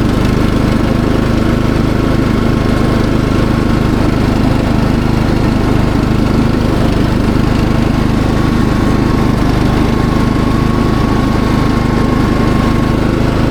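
Cox Stockman ride-on mower running steadily under throttle while mowing, an even engine hum with a faint steady whine above it.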